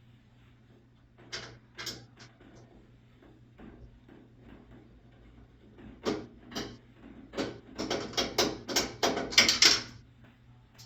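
Screws being backed out of the washer's panel with a screwdriver, making sharp mechanical clicks. A few single clicks come first, then a run of clicks that quickens to about three a second and stops shortly before the end.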